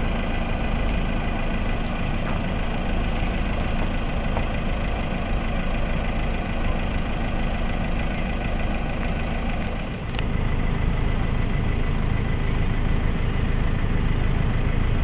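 Vehicle engine idling steadily with a low rumble, dipping briefly about ten seconds in before carrying on a little louder.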